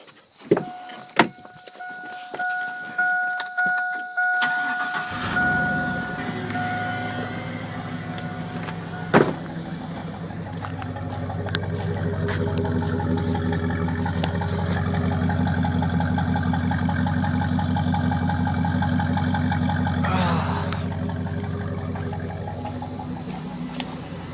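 A 1999 Chevy Silverado 1500's 5.3-litre Vortec V8 is started about five seconds in and then idles steadily through its dual exhaust, a little louder in the middle stretch. Before the start there are a couple of clicks and a repeating two-note chime.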